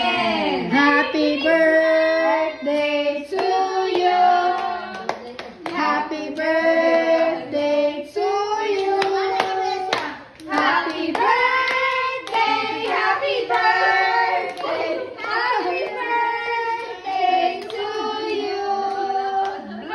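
A group of children singing a song together while clapping their hands.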